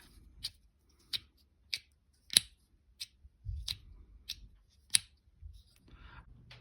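Small wooden fidget slider being worked back and forth, its sliding piece knocking with sharp clicks at a steady pace of about one every two-thirds of a second.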